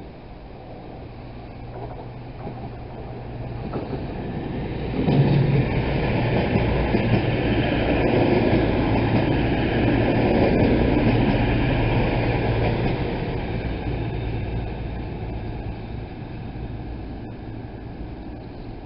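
CrossCountry Class 220 Voyager diesel multiple unit running into the platform, its underfloor diesel engines humming and wheels rumbling on the track. The sound builds, jumps as the train comes alongside about five seconds in, stays loudest for several seconds, then fades as the train draws away along the platform.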